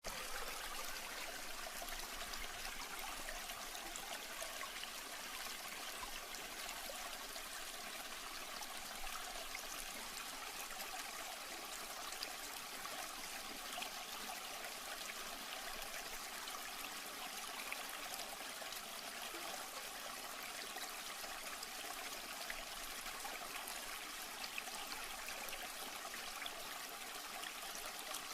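Running water trickling steadily, a continuous splashing flow that cuts in suddenly after silence.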